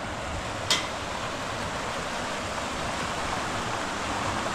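Rushing water of the Bode, a mountain river, running steadily, with one sharp knock about a second in.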